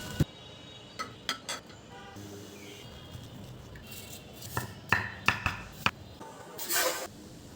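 Kitchen dishes and utensils clinking and knocking, with sharp, sometimes ringing clinks scattered through, a cluster of them around five seconds in, and a brief rush of noise near the end.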